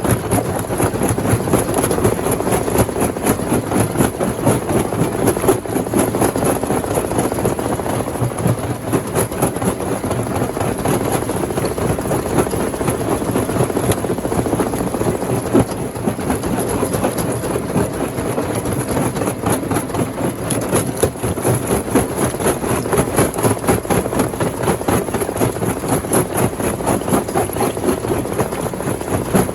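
Rock crusher machinery running steadily, an engine's drone under a dense, continuous clatter of stone.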